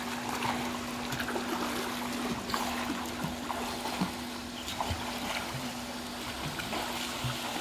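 Pool water splashing and lapping as swimmers paddle and kick, with a steady hum underneath.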